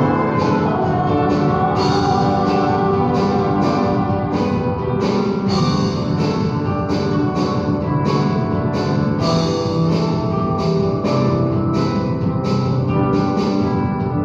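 Instrumental music: sustained chords with a steady pulse of plucked or struck notes, a little under two a second.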